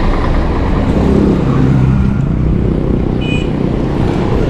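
Road traffic heard from a moving bicycle: a steady low rumble, with a motor vehicle's engine hum passing between about one and two and a half seconds in. A brief high beep sounds about three seconds in.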